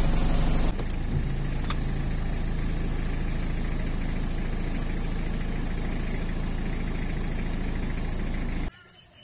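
Vehicle engine idling steadily; its note steps down slightly less than a second in, and the sound cuts off abruptly near the end.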